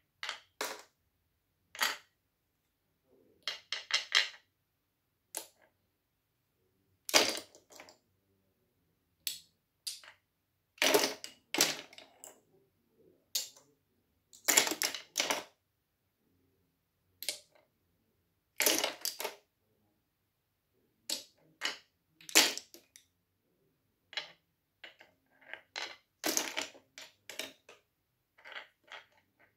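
Wooden toy pieces being handled with wooden tweezers and dropped into a plastic basket: clusters of sharp wooden clacks and clicks, separated by pauses.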